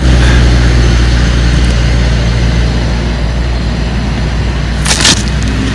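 A steady, loud, low engine drone that starts suddenly, with a brief rustle about five seconds in.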